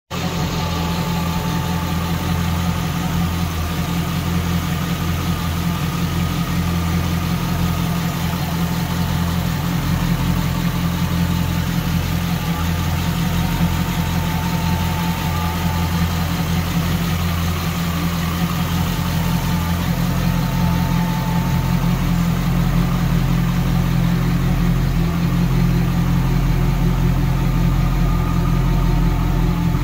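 Car's V8 engine idling steadily, a low even hum with no revving.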